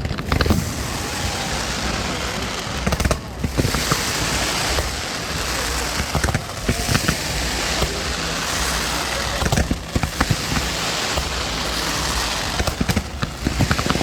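Fireworks display going off continuously: a dense, steady crackle peppered with many sharp pops.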